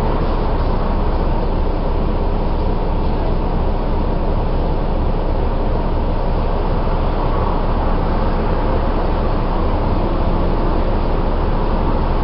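Volvo Enviro 400 double-decker bus heard from a passenger seat inside: a steady engine drone and running rumble, with no change in pitch or level.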